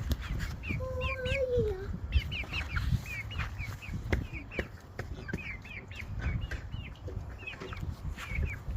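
Young chickens peeping with many short, quick high chirps that repeat throughout, one longer wavering call about a second in, over a low rumble of wind on the microphone.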